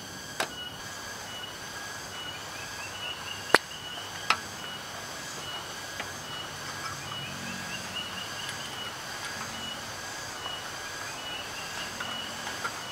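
Outdoor chorus of chirping insects, a steady high pulsing with short rising chirp runs. A few sharp clicks and knocks of gear being handled sound over it, the loudest about three and a half seconds in.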